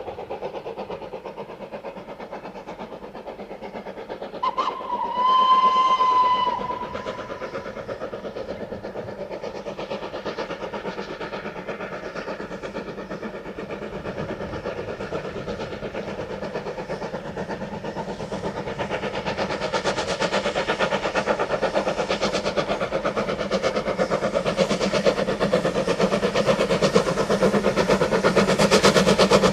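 A 0-8-0 steam locomotive working a passenger train, its exhaust beats and running noise growing steadily louder as it approaches. About four and a half seconds in, it gives one steady whistle blast lasting about two seconds.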